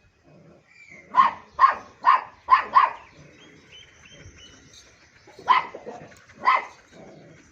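German shepherd dog barking: a quick run of five barks, then after a pause two more single barks about a second apart.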